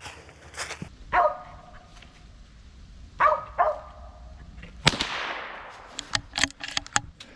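A mountain feist barks a few times at a treed squirrel, about a second in and again about three seconds in. Then a single gunshot goes off about five seconds in, with a trailing echo, followed by a few light clicks.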